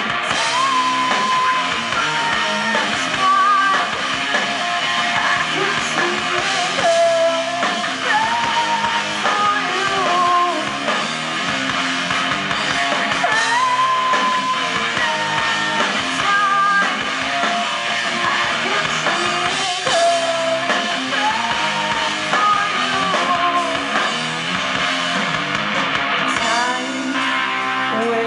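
Live rock band playing through a PA: a woman singing the melody over electric guitars and a drum kit.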